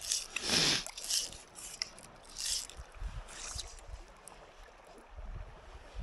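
Fly fishing from a small boat on a river: several short rasping swishes in the first few seconds, the loudest about half a second in, over faint water lapping and wind.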